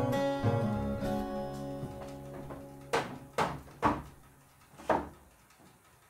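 Acoustic guitar background music fading out, then four sharp knocks on the wooden raised-bed frame within about two seconds, a little past halfway.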